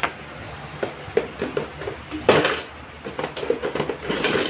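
Metallic clinks and clatter as a perforated steel bracket strap is handled and cut to length with hand tools. There is a louder, longer clatter about two seconds in and a quick run of clinks near the end.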